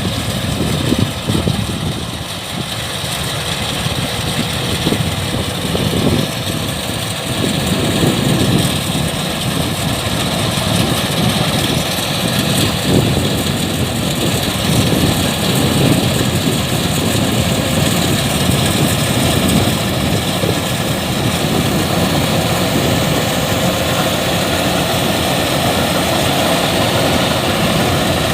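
Kubota DC-105X combine harvester's diesel engine and threshing machinery running steadily at working speed, a dense mechanical drone. The low rumble is uneven for the first half and steadier after.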